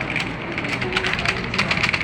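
Computer keyboard typed on fast: a rapid, uneven run of key clicks.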